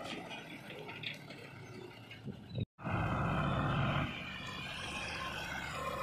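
Sonalika DI 35 tractor's diesel engine running steadily as it pulls a loaded trolley. The sound drops out for an instant about two and a half seconds in, then returns louder and closer.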